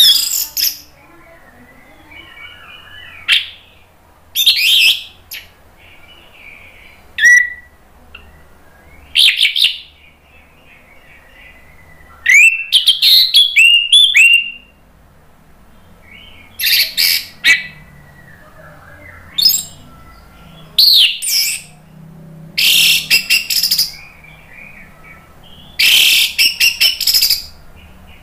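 Orange-headed thrush (anis merah) singing loudly in short, varied phrases of whistles and chirps. The phrases come in bursts separated by pauses of a second or two, and the longest, about two seconds, falls near the middle.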